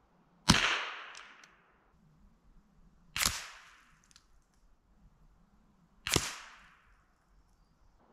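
Three rifle shots about three seconds apart, each a sharp crack trailing off over about a second, fired at steel targets 125 yards away.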